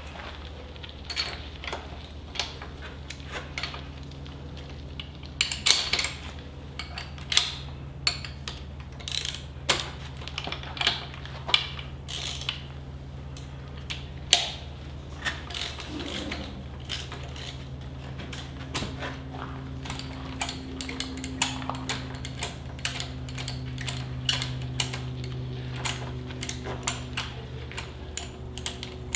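Ratchet wrench clicking in short, irregular runs as a 5/8 spark plug socket on an extension backs a spark plug out of the outboard's cylinder head, with a steady low hum underneath.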